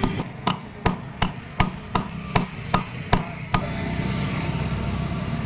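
Hammer tapping a new FAG wheel bearing into the rear wheel hub of a Maruti Suzuki Alto 800 with light, even blows, about ten strikes at nearly three a second. The blows stop about three and a half seconds in, and a steady low hum carries on after them.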